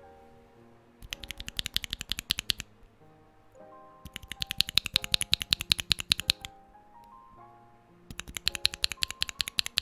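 Stock, unlubed Akko CS Lavender Purple tactile mechanical switches with a keycap on, pressed rapidly in three quick runs of clacking keystrokes, over background music.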